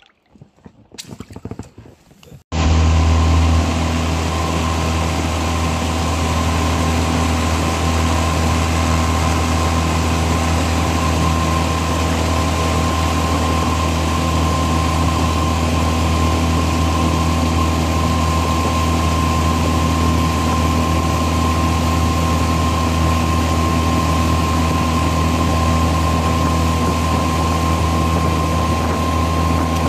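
Boat's outboard motor running at a steady pitch, its hum starting abruptly about two and a half seconds in.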